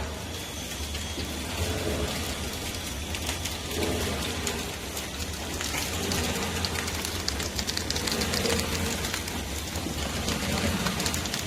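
Packaging machine running: a steady low hum under a dense patter of small clicks and rattles, the clicking thickest in the second half.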